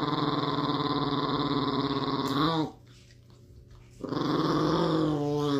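Small chihuahua-type dog growling while its nails are being clipped: two long, drawn-out growls with a pause of about a second between them.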